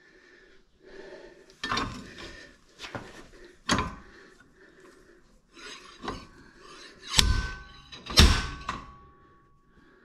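Irregular metal knocks and clanks from tools being worked against a seized wheel hub, about six blows spread out, with the two loudest near the end leaving a ringing metallic tone.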